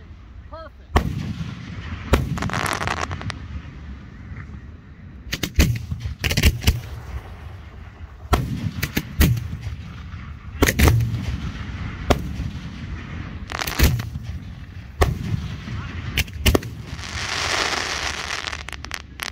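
Aerial fireworks bursting overhead in an irregular series of sharp bangs, with two longer hissing stretches, the longest near the end.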